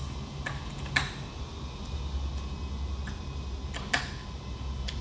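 A 5 mm Allen key clicking against metal screw heads as the screws on the face of a grinder attachment are tightened. There are about six short, sharp clicks spaced irregularly, the loudest about a second in and just before four seconds, over a low steady hum.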